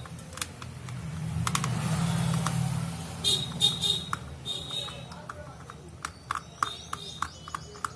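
Scattered small clicks and taps of hand-tool work on a Bluetooth speaker, over a low rumble that swells and fades, like a vehicle passing outside, with a few short high beeping toots about three and four seconds in.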